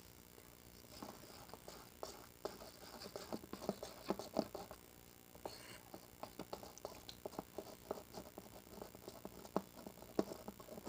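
A utensil stirring cake batter with cocoa powder and a little milk in a bowl, making irregular light taps and scrapes against the bowl.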